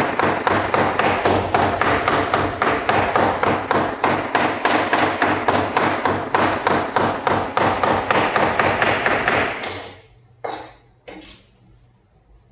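Rapid, steady chopping of chicken into mince with a heavy knife on a chopping block, about five strokes a second. It stops shortly before the end, followed by two separate knocks.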